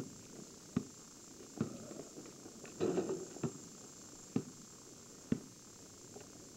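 Basketball being dribbled on pavement: about seven sharp bounces, roughly one a second, with a louder scuffing stretch about three seconds in.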